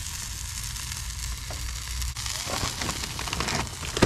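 Chicken sizzling over a charcoal grill, a steady hiss with fine crackles as juices drip onto the hot coals. One sharp click comes near the end.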